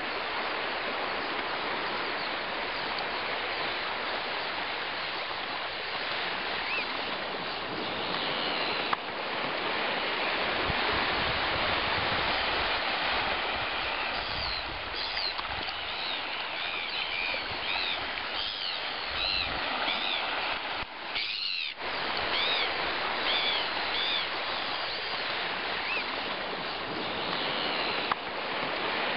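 Steady wash of small waves on a shingle shore. From about halfway in, a bird calls over it with a quick series of short, high chirps, each rising and falling.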